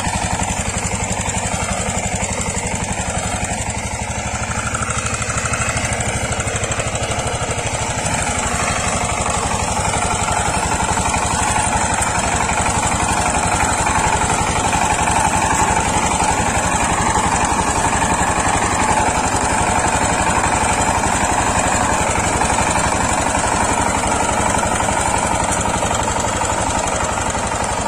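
Single-cylinder diesel engine of a two-wheel walk-behind power tiller running steadily under load while it pulls a rotary tiller through dry field soil, with a fast, even exhaust beat.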